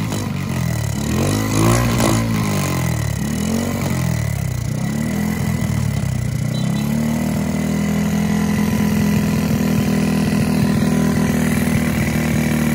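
Honda Kirana's air-cooled single-cylinder engine, newly revived after long storage with a cleaned carburetor, revved up and down several times over roughly the first six seconds, then settling into a steady idle.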